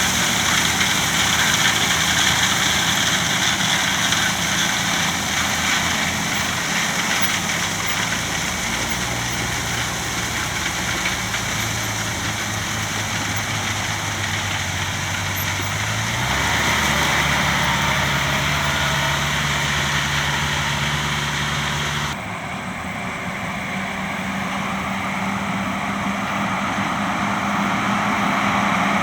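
Heavy diesel engine of earthmoving equipment running steadily, its pitch stepping up about two thirds of the way through. The sound changes abruptly near the end.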